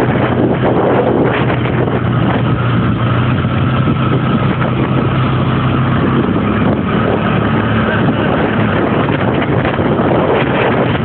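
ATV (four-wheeler) engine running steadily while riding, its note shifting slightly about six seconds in.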